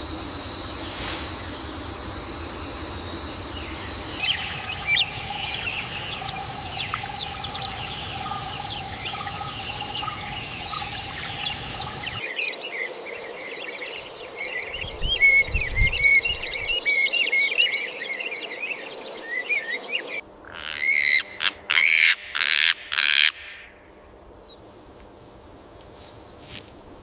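Nature ambience that changes with each cut. It opens with a steady high insect drone, then small birds chirp over it, then comes a busy chorus of short bird chirps. A few loud, pitched animal calls follow near the end.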